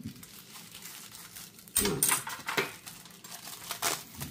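Metal spoon scraping ice cream out of a paper tub and knocking against a small ceramic bowl: a handful of short scrapes and clinks, the loudest about two seconds in.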